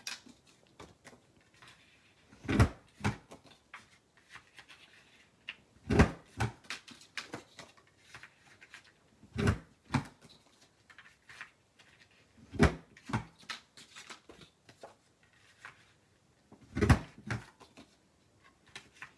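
Corner rounder punch clunking down on paper corners five times, a few seconds apart, each clunk followed by a couple of lighter clicks as the punch is repositioned.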